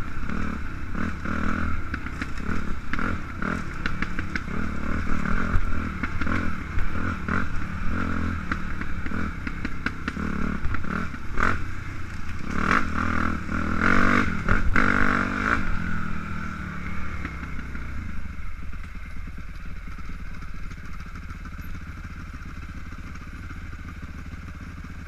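Dirt bike engine revving up and down while riding a rough forest trail, with knocks over bumps. About eighteen seconds in it settles to a steady, quieter idle as the bike stops.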